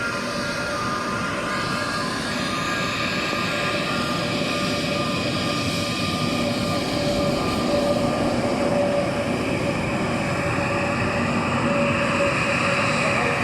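Airbus A320neo's Pratt & Whitney PW1100G geared turbofan engines running at taxi power: a steady whine of several held tones over a rushing hiss, growing a little louder after the middle.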